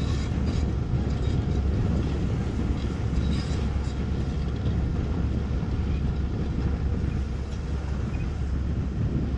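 Tracked excavator's diesel engine running under load as it drives its tracks across the sand toward a barge, a steady low rumble.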